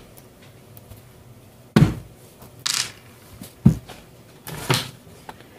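Small metal screws and parts handled and set down on a wooden workbench: four light clicks and knocks over a few seconds, the first coming about two seconds in.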